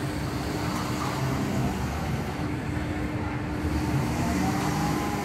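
Swinging pirate ship ride in motion: a steady low mechanical rumble with a constant hum, growing a little louder about four seconds in as the ship swings close by.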